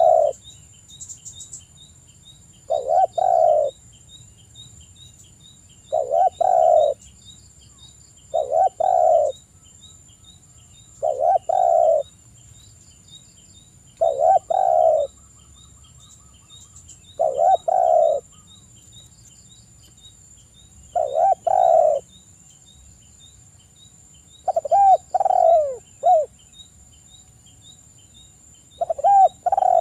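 Spotted dove (tekukur) cooing: a low coo phrase about every three seconds, around ten in all. Near the end the phrases break into shorter notes that fall in pitch.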